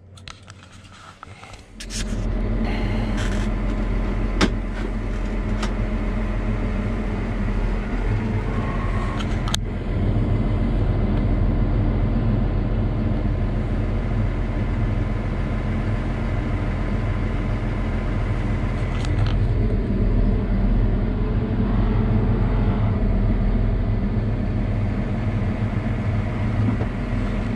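The 6.7-litre Cummins diesel engine of a Versatile Nemesis tractor running steadily, heard from inside the cab as the tractor drives. It comes in about two seconds in, with a couple of short clicks.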